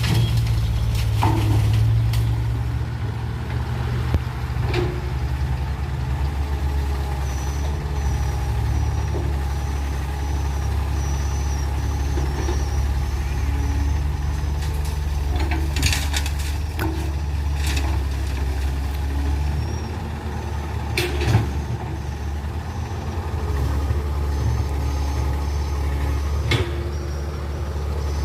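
Komatsu PC200 hydraulic excavator's diesel engine running steadily under work, with a few sharp clunks from the digging gear now and then.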